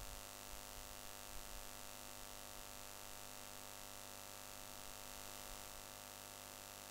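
Faint steady electrical hum and hiss: the open microphone's background noise, with no other sound.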